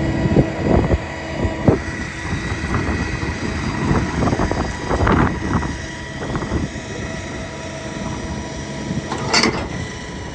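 Chevy Tracker running while it plows and drives through deep snow, its engine steady under irregular knocks and thumps from the truck and plow jolting over packed snow, with one sharper bang or scrape near the end.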